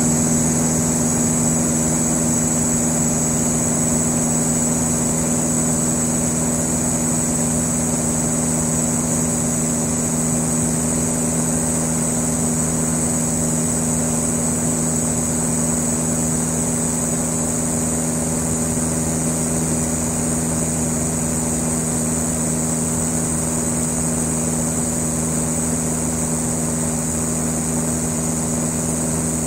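Van's RV-7 light aircraft's piston engine and propeller running steadily in a descent, heard inside the cockpit as an even drone. A thin, steady high-pitched whine sits above the engine note.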